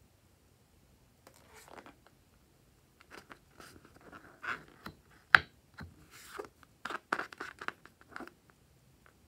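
Hands handling a filled rubber balloon, fingers rubbing and squeezing its skin in irregular rustles and squeaks, with one sharp click about five seconds in.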